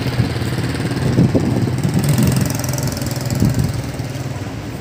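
Engine of a motor vehicle running slowly close by, a steady low hum with uneven low pulses that swells in the middle and then eases off.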